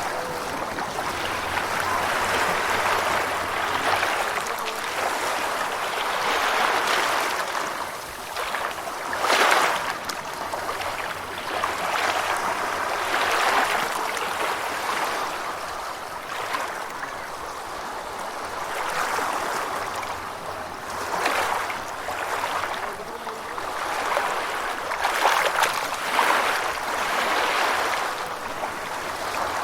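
Gentle ocean waves washing in: a continuous rushing of water that swells and ebbs every few seconds, with a few sharper splashes, the loudest about nine seconds in.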